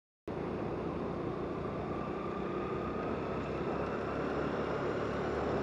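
Steady wind and engine noise of a motorcycle on the move. It cuts in abruptly just after the start, out of dead silence.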